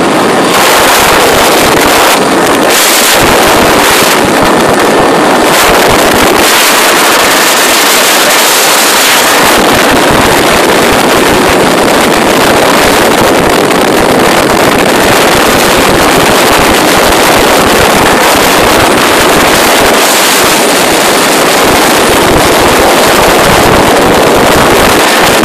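Atlas Oryx helicopter in flight, heard from the open cabin door: a loud, steady roar of its engines and rotor mixed with wind buffeting the microphone.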